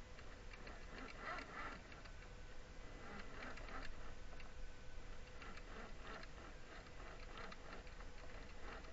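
Small electric motor and gearbox of an RC scale crawler running slowly under load, a faint buzzing whine with irregular ticking and clicking as the tires grip and slip on rock.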